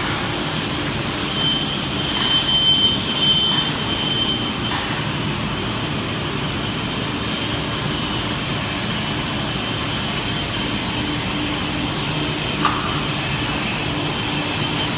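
Industrial CNC panel saw machinery running with a steady mechanical hum. A higher whine comes in for a few seconds near the start, and there is a short click near the end.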